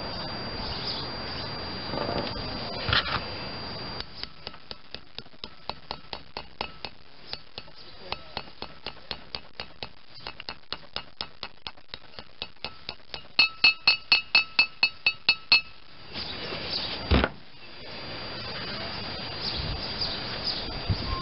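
A small hammer tapping a new grease seal into the hub of a drilled-and-slotted brake rotor, about four light taps a second for some ten seconds. It ends with a run of about ten harder strikes that ring like metal. One single knock comes shortly after.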